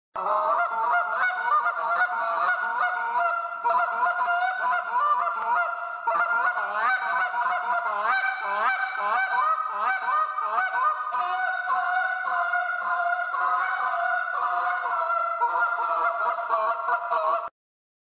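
Geese honking without pause, many calls overlapping, cutting off suddenly near the end.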